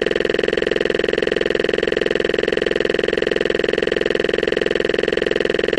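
Loud, steady electronic buzz with a rapid even flutter, one unchanging tone with many overtones: a digital audio glitch where two video clips are joined.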